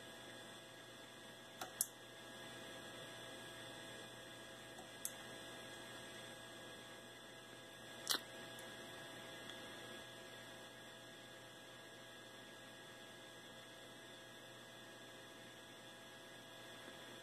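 Faint, steady electrical mains hum, with a few short faint clicks, the clearest about eight seconds in.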